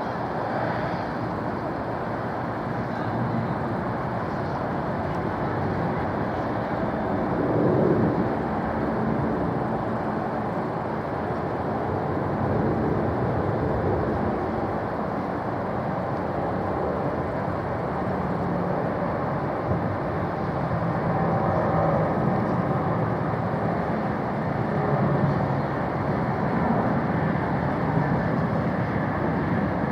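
Jet airliner engine noise at the airfield: a steady, even rumble with a faint low hum appearing past the middle.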